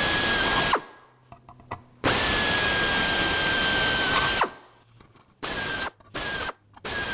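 Pneumatic air drill match-drilling rivet holes through aluminium sheet and flange with a number 40 bit, running with a steady whine. It runs for about a second at the start and again for about two and a half seconds in the middle, then gives a string of short blips near the end.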